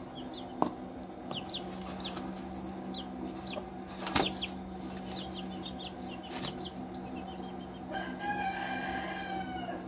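Young chickens peeping, with many short high cheeps scattered throughout and a longer drawn-out call about eight seconds in. A few sharp knocks, the loudest about four seconds in, and a faint steady low hum sit underneath.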